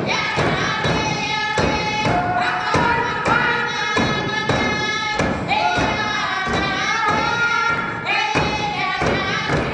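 Eskimo frame drums beaten in a steady beat, about two strokes a second, under a group of voices singing a traditional dance song in long held notes.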